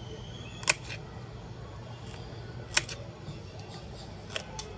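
Kitchen knife cutting a carrot on a wooden board: a few sharp, separate chops, the last two close together near the end, over a steady low background hum.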